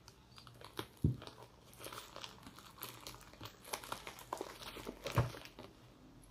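Plastic shipping mailer crinkling in irregular crackles as hands handle it and pick at it to get it open. Two louder bumps come about a second in and about five seconds in.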